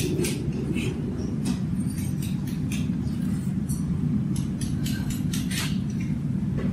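Short strokes of a steel farrier's rasp across a horse's hoof, giving the trimmed hoof its final finishing before shoeing. The strokes come irregularly over a steady low rumble.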